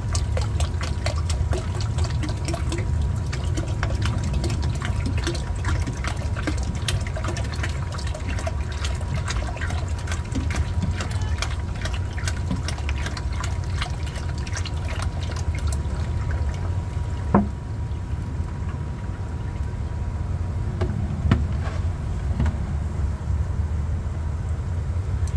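Water poured from a plastic gallon jug into a hydroponic reservoir tote, splashing onto the nutrient solution as the reservoir is topped up with fresh water. The splashing eases off about two-thirds of the way through, followed by a sharp knock.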